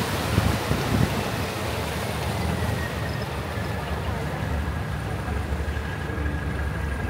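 A boat's motor running steadily with a low hum and a faint high whine.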